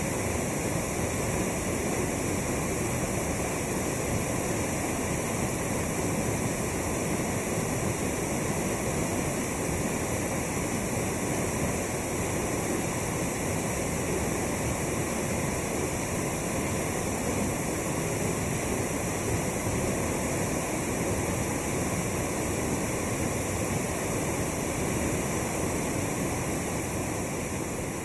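A large waterfall in full flow, pouring over a high rock ledge: a constant, even rush of falling water with no breaks.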